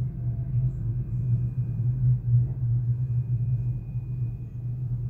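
Steady low rumble inside the passenger saloon of a Merseyrail Class 777 electric train, with a faint, steady high-pitched whine above it.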